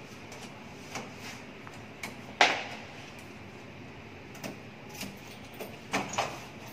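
Irregular knocks and clicks at an apartment front door as it is handled, the loudest a sharp bang about two and a half seconds in, with a cluster of smaller knocks near the end.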